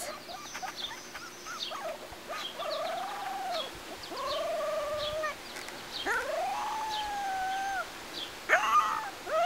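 Two-week-old golden retriever puppies whining: several long cries that rise and then fall in pitch, followed near the end by a cluster of shorter, quicker cries.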